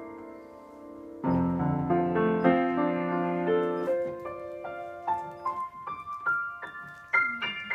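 Piano playing a recital piece: a held chord dies away, then about a second in a full chord with bass sounds, followed by a run of notes climbing higher that ends in quick, repeated short high notes.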